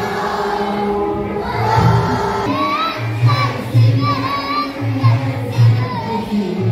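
A group of children singing a prayer together, their voices wavering in pitch over a low repeating beat.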